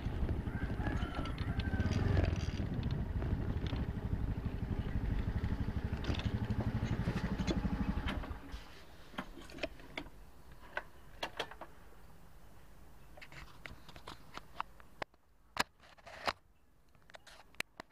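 A Honda fuel-injected motor scooter's engine runs steadily and stops abruptly about eight seconds in. After that come only scattered small clicks and taps.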